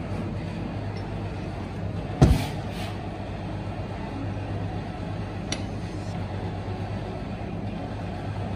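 A sharp knock about two seconds in, with a smaller one just after and a light click a few seconds later, as a planetary mixer's gear plate is handled and fitted back into the mixer head's housing. A steady low hum runs underneath.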